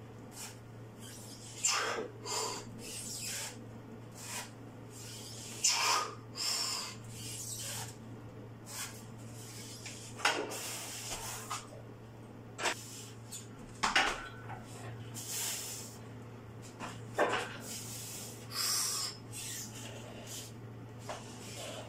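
A weightlifter's heavy, forceful breaths during a set of heavy barbell front squats to a box, a burst every two to four seconds. A steady low hum runs underneath.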